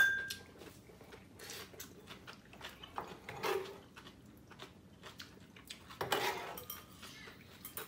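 Sharp ringing clink of metal utensils on a ceramic bowl at the start, then a metal ladle and chopsticks working in a griddle pan of instant ramen. Short bursts of slurping and chewing noodles come about a second and a half, three and a half, and six seconds in.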